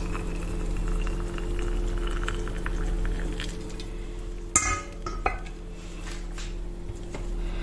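Boiling water poured from a stainless steel kettle into a glass jar of sliced jalapeños, a faint pour in the first seconds, then a sharp ringing clink about four and a half seconds in and a lighter one just after, over a steady low hum.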